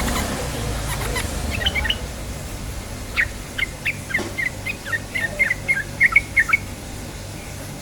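Yellow-vented bulbul (trucukan) song: a few chirping notes, then from about three seconds in a quick run of short, bubbly notes that stops a little past six seconds.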